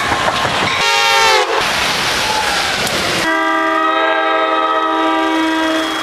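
A train passing at speed on the near track, a loud rush of wheel and wind noise, with a short horn blast about a second in whose pitch falls. The rush cuts off about three seconds in, and a multi-chime train horn chord is held steadily from then on, its notes shifting once partway.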